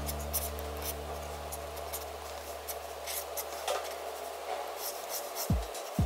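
Pen strokes scratching across paper while a car is sketched: quick, short, irregular strokes. A held low music chord fades away over the first few seconds, and a beat of low electronic drum hits starts near the end.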